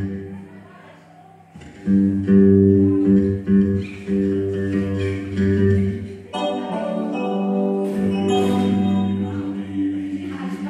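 Background music: a song with a singing voice. It drops low for a moment near the start, comes back up about two seconds in, and grows fuller about six seconds in.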